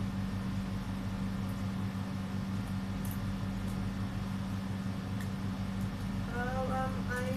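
Steady low mechanical hum with a few faint clicks. About six seconds in, a song with singing begins.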